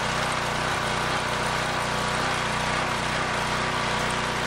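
Generac pressure washer's small gas engine running steadily, driving a pump that is spraying water out of the bottom through leaking seals.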